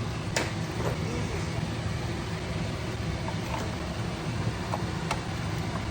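A steady low mechanical rumble with a noisy hiss over it, broken by a few sharp clicks, one near the start and one near the end.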